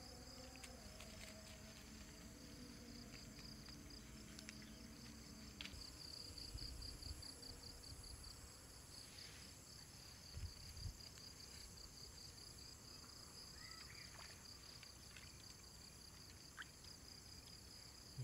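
Faint insect chorus: a steady, rapidly pulsing high trill that runs on without a break. Two soft low thumps come about ten seconds in.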